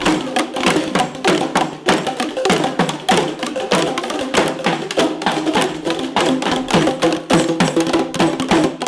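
Improvised percussion music: quick, irregular strikes, several a second, over steady pitched notes.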